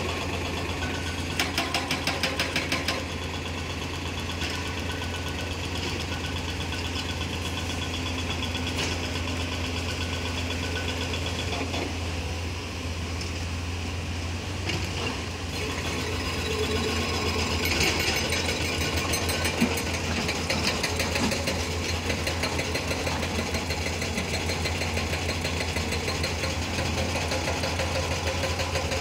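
Diesel engine of a Hyundai Smart 210 crawler excavator running steadily under work as it digs and lifts soil with its bucket. A run of rapid ticking comes about two seconds in.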